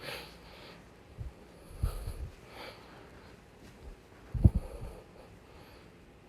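Hands-on manual treatment of an ankle: a few soft, low thumps and rustles of handling the leg on a treatment table, with breaths, the loudest thump about four and a half seconds in.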